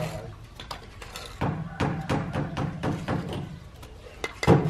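Irregular knocks and clatters from construction work: sharp strikes come in loose clusters, getting louder and denser after about a second and again near the end.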